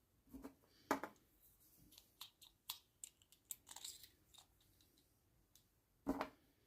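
Small clicks and taps of a chrome click-pen kit's parts being handled and pressed together during assembly, with louder knocks about a second in and near the end.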